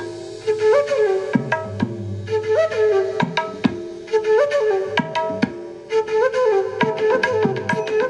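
Instrumental music, a flute melody over tabla, played at full volume through a Bose SoundLink Revolve Bluetooth speaker. The melody repeats a short phrase that bends in pitch, and the low drum strokes slide downward in pitch.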